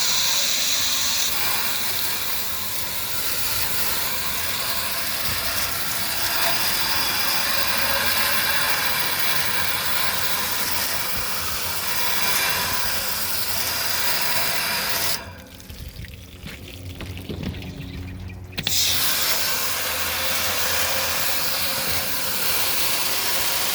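Garden hose spray nozzle jetting water into an air conditioner's condenser coil fins, a steady hiss and splash as the dirt is washed out. About two-thirds of the way through, the spray breaks off for about three seconds, then starts again abruptly.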